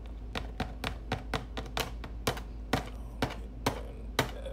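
Mixed vegetables shaken out of a clear plastic clamshell tub and dropping into plastic meal-prep containers: a run of sharp clicks and taps, about two a second.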